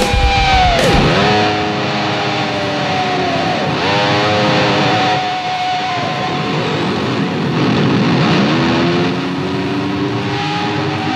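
Background rock music: a guitar line whose notes dive down in pitch and climb back up several times. The drums drop out about a second and a half in.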